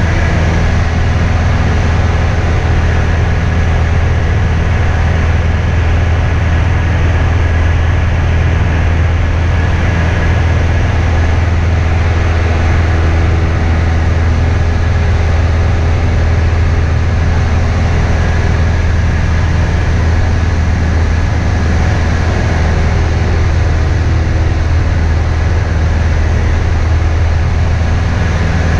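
Steady drone of a small training airplane's engine and propeller, heard inside the cabin in flight, with a strong low hum that does not change.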